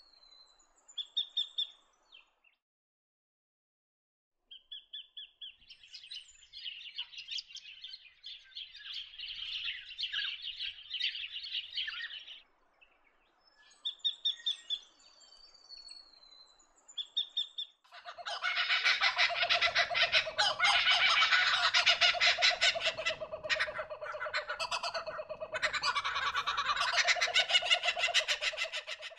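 Kingfisher calls: a series of rapid, repeated chattering notes, short call bursts, then in the last ten seconds a loud, continuous burst of rapid calls.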